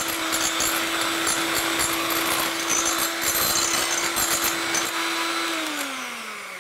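White electric hand mixer beating egg whites and sugar into a soft meringue in a glass bowl: a steady motor hum with whisking noise from the beaters, the motor's pitch sliding down near the end as it slows.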